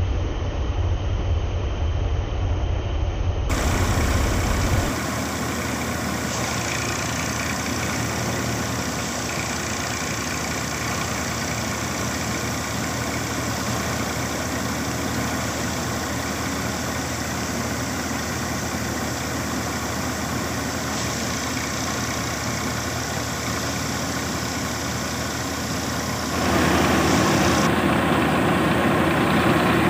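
A tractor-driven Surjeet paddy thresher running steadily while it threshes rice. Near the end the Massey Ferguson 1035 DI tractor's diesel engine, which powers it, is heard up close and louder.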